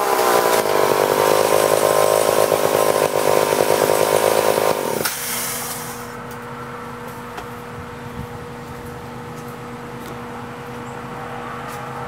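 McCulloch SP81 two-stroke chainsaw running at high revs for about five seconds, then the throttle is released and it drops to a steady idle.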